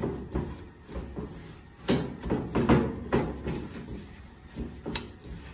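Gloved hand squishing and stirring a wet mash of oily canned tuna and salt in a stainless steel bowl, in uneven squelching strokes, with a few sharp knocks of the metal bowl.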